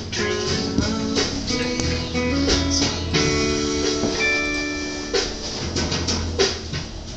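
Music: a recorded song with guitar and a steady bass line.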